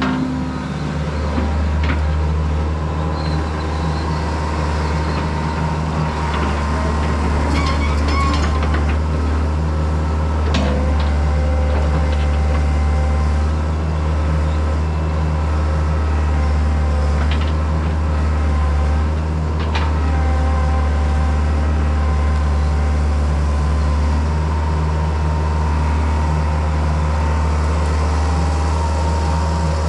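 Heavy diesel equipment engine running steadily, with a few short metallic clanks, as when earthmoving machinery is working.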